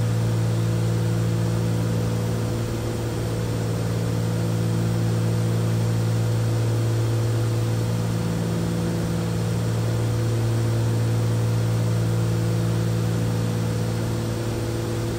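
Cabin drone of a Cessna 310's twin piston engines and propellers in cruise flight: a steady low hum that slowly swells and fades as the two engines drift in and out of sync.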